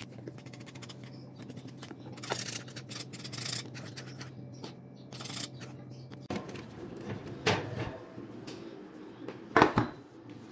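Wire whisk scraping and rubbing against a metal pot as it mixes thick chocolate sauce, in quick repeated strokes, with a few sharper knocks of the utensil on the pot near the end.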